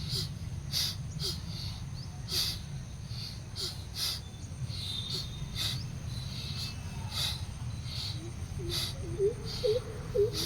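Bhastrika bellows breathing: sharp, forceful breaths pumped in and out through the nose in a quick steady rhythm, about one and a half to two strokes a second, over a low steady hum. A few short chirping tones come in near the end.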